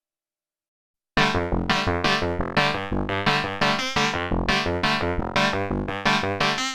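Sequential OB-6 analog synthesizer playing a sequenced FM patch, with VCO 2 cross-modulating the first oscillator at audio rate, completely dry. After about a second of silence it starts a fast pattern of sharp, bright notes over a low bass line.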